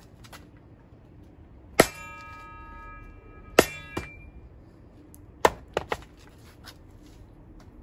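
A steel broadsword blade chopping down into a log of firewood on a chopping block twice, each blow ringing metallically for a second or more, with a duller knock just after the second. A few lighter knocks follow as the log, still unsplit, topples onto the block.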